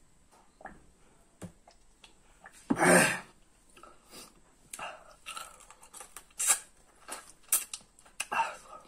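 Close-up eating sounds of a man eating chicken curry and rice with his fingers: wet lip smacks, chewing and small clicks scattered through, with one loud breathy noise about three seconds in.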